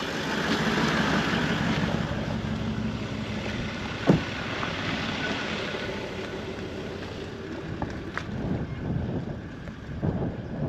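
Wind rushing on the microphone over a low vehicle hum, a single sharp thump about four seconds in, then footsteps crunching on sandy gravel near the end.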